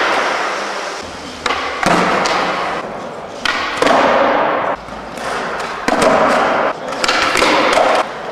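Skateboard wheels rolling on a smooth skatepark floor, broken by several sharp clacks and thuds as the board is popped and lands during flatground tricks.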